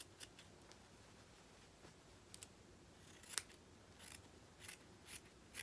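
Scissors snipping through fabric, trimming an uneven edge: a string of faint, short, irregular snips, the sharpest about three and a half seconds in.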